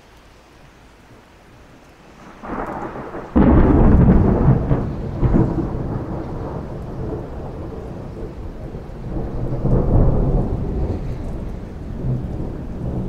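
Thunder from a lightning strike. It starts building about two and a half seconds in, breaks into a sudden loud crack about a second later, then rolls on as a long rumble that swells again near the ten-second mark. Rain falls throughout, alone and faint before the thunder arrives.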